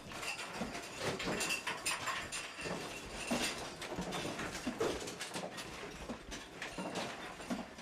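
Objects rattling and clattering irregularly, shaken by the Fukushima earthquake, in a small room.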